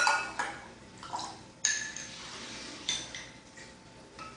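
Kitchen dishes and a spoon clinking against each other several times, with ringing tones and a faint sound of liquid, as dissolved gelatin is transferred into a second container. The loudest clinks come at the start and about a second and a half in.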